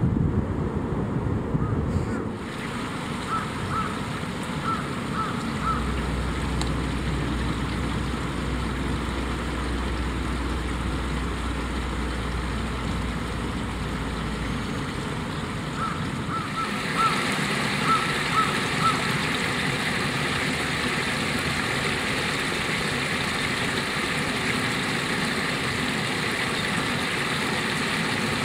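Shallow stream water flowing and splashing over rocks and a small stepped weir. About two-thirds of the way through, the rush turns brighter and louder as the water spills over the weir steps.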